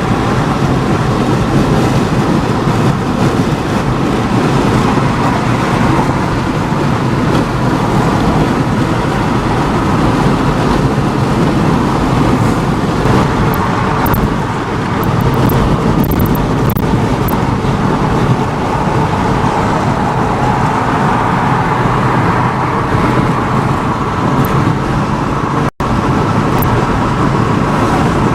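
Steady, loud rush of heavy rain pouring down, with a few faint sharp ticks in the middle; the sound cuts out for an instant near the end.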